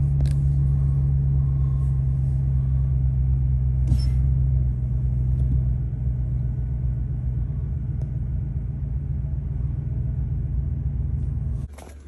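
2012 Chevy Silverado engine idling steadily, heard from inside the cab as a low, even rumble. It cuts off abruptly near the end.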